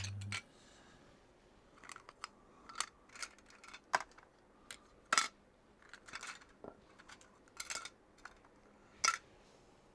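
Small plastic building bricks clicking and clattering as they are handled and pressed onto a baseplate: about a dozen irregular sharp taps.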